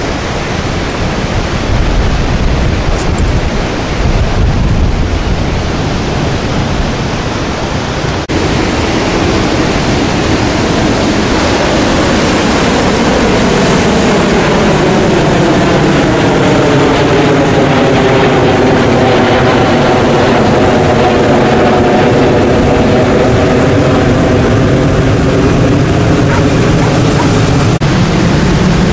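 Jet aircraft passing low overhead: its sound swells from about ten seconds in and stays loud, with a slow sweeping change in tone as it goes over. Under it are ocean surf and wind buffeting the microphone.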